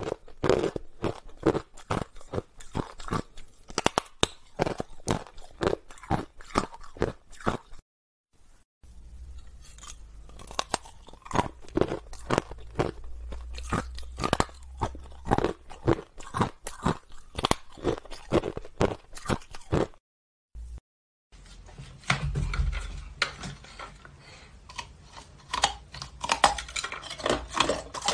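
Hard ice bars being bitten and chewed: a rapid, uneven run of sharp cracks and crunches, several a second. It breaks off briefly twice, about 8 and 20 seconds in.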